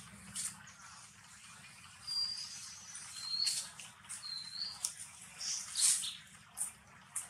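Newborn long-tailed macaque giving short high-pitched squeaks, three of them about a second apart in the middle. Dry leaves crackle and rustle as the monkeys move on the ground.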